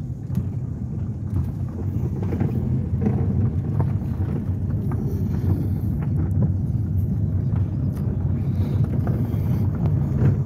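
A car driving slowly on a gravel road, heard from inside the cabin: a steady low rumble from the engine and tyres, with scattered small clicks of gravel under the wheels.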